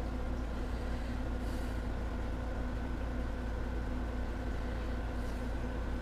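Steady low hum with a few faint, even tones above it over a constant noise hiss: background machine hum, without change.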